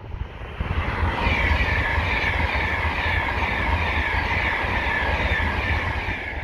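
Modern express passenger train passing at speed on the main line: a loud rush of wheels on rails with a high whine that slowly falls in pitch, fading near the end.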